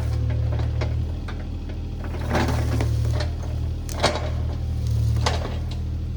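Diesel engine of a compact earthmoving machine running steadily, with scattered knocks and cracks from the work.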